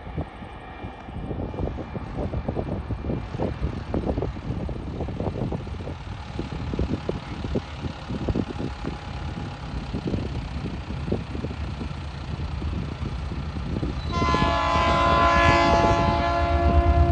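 A diesel coal train approaching, with a low rumble and gusty buffeting for most of the time. About three seconds from the end, the lead locomotive sounds its air horn, a chord of several steady notes held for about three seconds.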